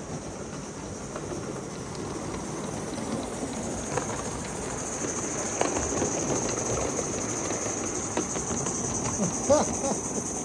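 Live-steam model locomotive, a green GWR-style 2-6-0, running past on its track with a steady high-pitched hiss that grows stronger about halfway through as it comes close, and a few light clicks from the wheels on the rails.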